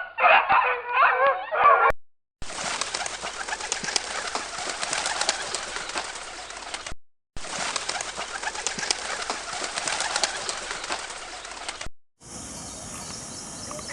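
Bird calls in several short clips spliced together, each breaking off abruptly. The first is a couple of seconds of wavering calls; the two longer middle clips are a dense, continuous clamour.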